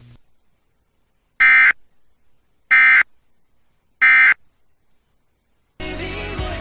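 Emergency Alert System End-of-Message code: three identical short bursts of shrill digital data squawk, about a second and a bit apart. This marks the end of the warning. About a second after the last burst, a stretch of hissy noise starts.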